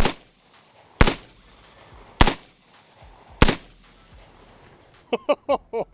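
Four loud single rifle shots about a second apart from an AR-style rifle wearing a Dead Air Pyro flash-enhancing muzzle device over a flash hider, each shot with a short echo tail. Near the end comes a quick run of short voiced sounds.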